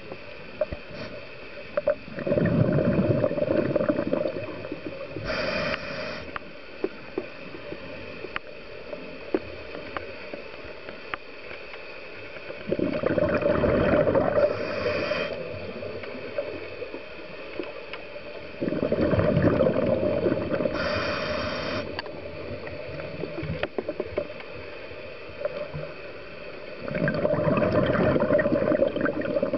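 Scuba diver breathing through a regulator, heard underwater. Four long bubbling rushes of exhaled air each come with a short, higher hiss of inhalation. Faint scattered clicks sound between the breaths.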